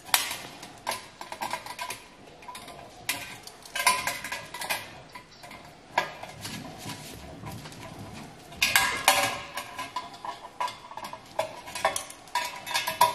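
Metal parts and loose hardware clinking and tapping against each other and the tabletop as a handle is fitted to a sheet-metal pizza oven: irregular light clicks with a short metallic ring, busier about four and nine seconds in.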